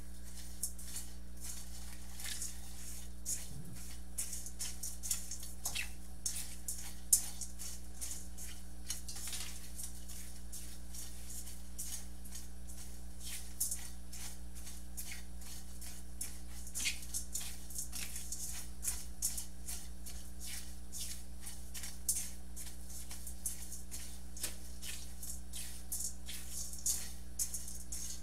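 Silicone spatula scraping and stirring dry breadcrumbs around a stainless steel skillet as they toast, a continuous run of short scratchy, rattling strokes with one sharper knock about seven seconds in. A steady low hum runs underneath.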